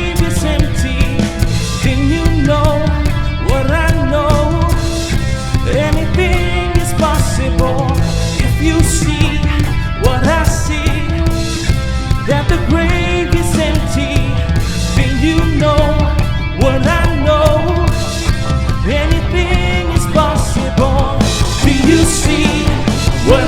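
Contemporary worship band music with a full drum kit and bass keeping a steady beat under a sung melody.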